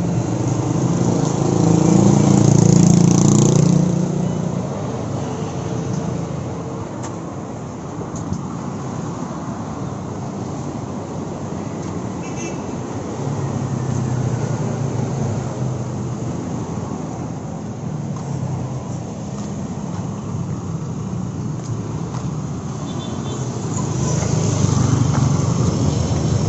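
City street traffic: the steady rumble of passing cars and motorcycles, with a louder vehicle going by a few seconds in and another near the end.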